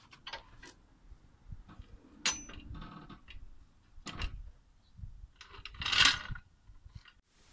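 Irregular metallic clinks and clanks of tyre-change tools at a car wheel and floor jack. One clink about two seconds in rings briefly, and the loudest clank comes about six seconds in.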